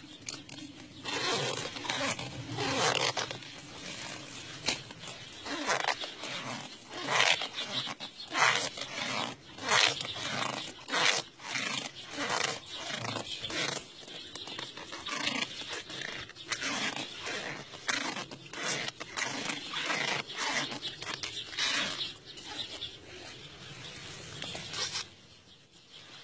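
Plastic grafting tape crinkling and rustling in short, irregular bursts as it is stretched and wound around a grafted sapling stem, then pulled tight and tied.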